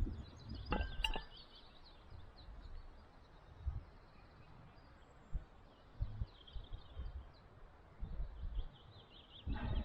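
Small birds chirping and singing faintly, with a few low bumps on the microphone.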